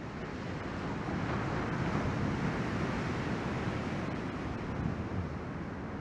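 Ocean surf washing in along the beach, a steady rushing that swells louder about a second in and eases toward the end, with wind buffeting the microphone.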